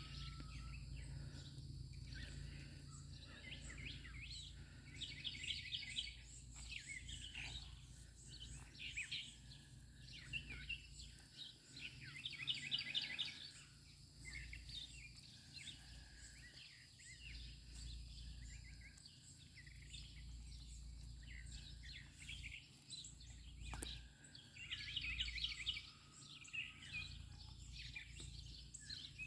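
A songbird faintly repeating a short trilled phrase every several seconds, over a low steady background rumble.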